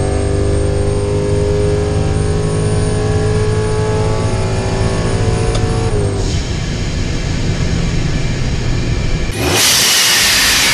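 Ram pickup truck's engine at full-throttle acceleration, heard from inside the cab, with an upshift about six seconds in where the engine pitch drops. About nine seconds in, a loud whooshing sound effect comes in over it.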